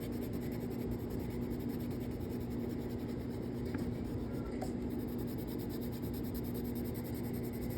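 Water-soluble crayon scratching across paper in quick, continuous back-and-forth coloring strokes, over a steady low electrical hum.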